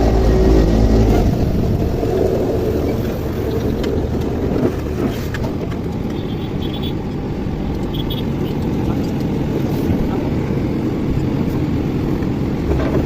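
Engine running steadily, a low rumble whose pitched hum is strongest in the first second or so and then settles into an even drone.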